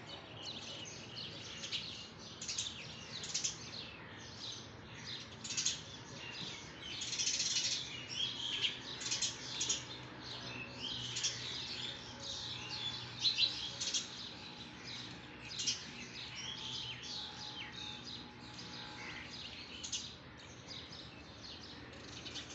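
Small songbirds chirping and twittering, many quick high chirps and short trills overlapping without pause.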